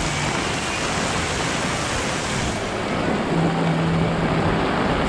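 Heavy rain pouring steadily onto a paved street, a dense even hiss. A short low hum rises above it partway through.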